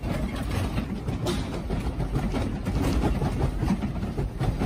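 Earthquake shaking a room: a steady low rumble with small rattles and clicks of household objects and furniture, starting abruptly.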